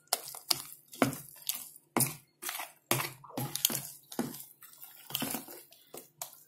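Thick, coarse-ground idli batter being stirred and folded with a spoon in a plastic bowl: irregular wet squelching strokes, about two a second.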